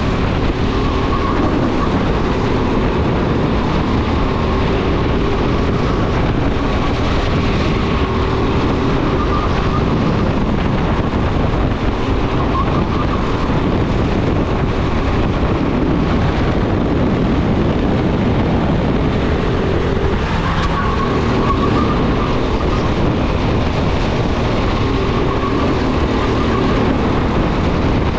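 Racing kart engine running at speed through a race lap, its note rising and falling a little with the throttle. Heavy wind and vibration rumble on an onboard microphone.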